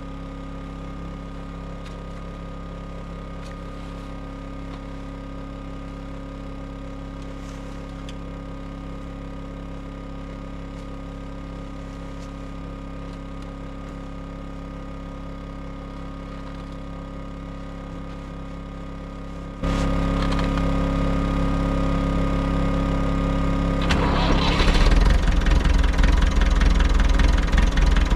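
A small engine running steadily with an even hum. About two-thirds of the way in it gets suddenly louder, and near the end it turns louder and rougher, with a heavy low rumble.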